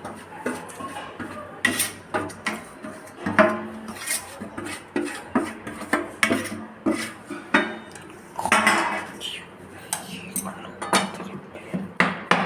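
A spoon stirring in a pan, knocking and scraping against its sides as gram flour and sugar syrup are mixed together: irregular clinks about once or twice a second, with a longer scrape about two-thirds of the way through.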